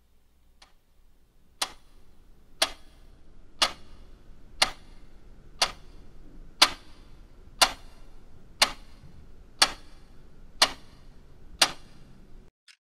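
Wall clock ticking, one sharp tick a second, the first tick faint. A low hum runs under the ticks and cuts off shortly before the end.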